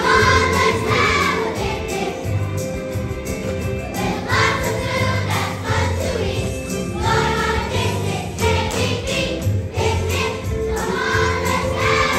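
Children's choir singing a song with instrumental accompaniment and a steady beat.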